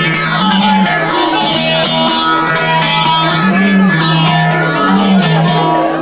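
Bağlama (long-necked saz) playing an instrumental semah tune, its low melody line stepping back and forth between two notes in a repeating pattern.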